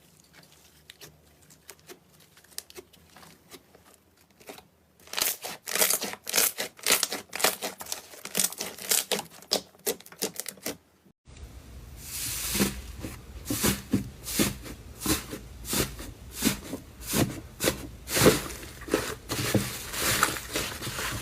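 Slime being squeezed and worked by hand, giving off rapid crackling and popping clicks. It is faint for the first few seconds and grows busier. About eleven seconds in, a cut leads to a louder clip with denser crackling over a low rumble.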